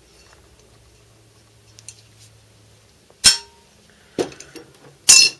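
Hand-held sheet metal hole punch working on aluminium angle. About three seconds in there is a sharp metallic snap with a short ring, then two more metal clanks within the next two seconds.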